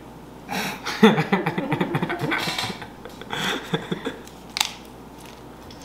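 Soft wordless laughter mixed with the rustle of a paper towel pressed onto cookie dough on a baking sheet, then a single sharp click near the end.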